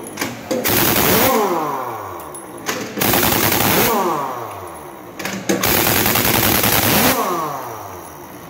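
Pneumatic impact wrench hammering on a truck's dual rear wheel nuts in three long rattling runs, easing off between them with its pitch sliding.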